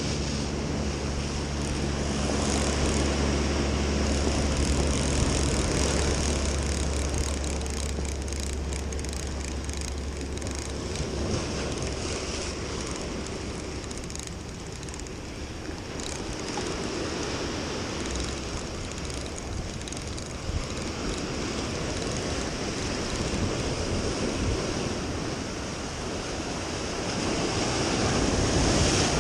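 Surf breaking and washing over boulders, with wind buffeting the microphone. A steady low hum runs under it for the first several seconds and then fades.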